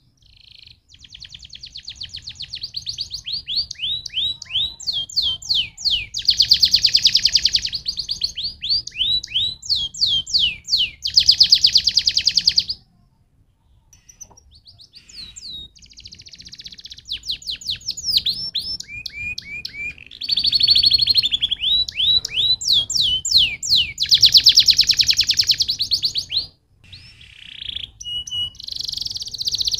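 Domestic canary singing long, loud song phrases of rapid trills and quick falling sweeps, with a pause of about a second near the middle and another brief break near the end.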